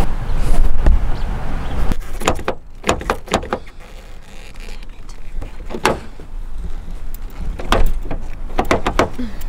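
Car door handle and latch being worked: a series of sharp clicks and knocks as the handle is pulled and the door is opened. A low rumble fills the first couple of seconds.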